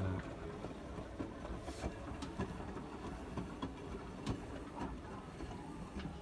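Hotpoint WT761 Ultima washing machine running: a steady churning noise with scattered clicks and knocks, and a low thump right at the start.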